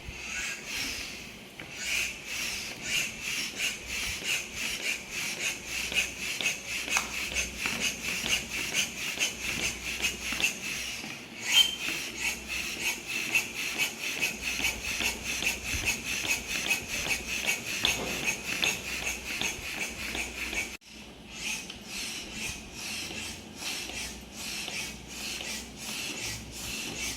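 Air pump inflating an empty exercise ball: a rhythmic hiss of air with each pump stroke, about two strokes a second. The ball is still slack, so the fill goes slowly. The pumping breaks off for an instant about two-thirds of the way through, then carries on.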